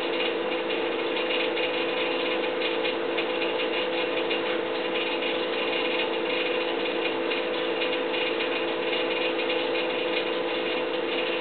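A steady mechanical hum with a fast ticking, whirring texture, unchanging throughout: a background machine noise whose source is unidentified.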